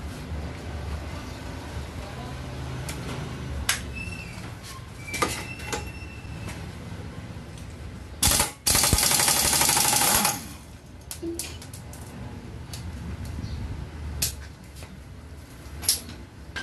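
Electric impact wrench with a 24 mm socket rattling in one burst of about two seconds just past the middle, loosening the torque-drive (clutch) nut on a Yamaha NMAX 155's CVT. Sharp clicks and clanks of metal tools come before and after it.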